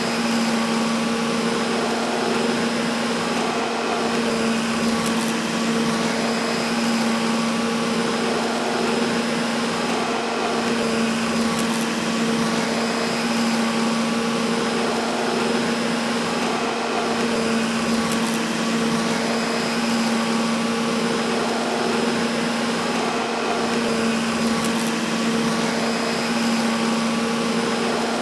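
Vacuum cleaner running steadily: an even rush of air over a constant motor hum.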